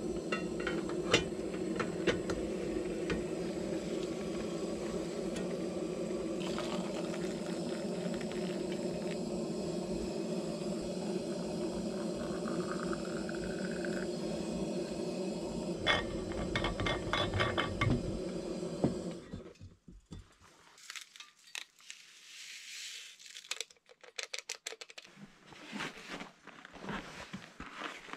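Gas stove burner on a Primus canister running with a steady roar, with clinks of the aluminium pot and its handle. About twelve seconds in, hot water is poured into a thermos flask and rises in pitch as it fills. The burner sound stops abruptly about 19 seconds in, leaving faint scattered rustles and crunches.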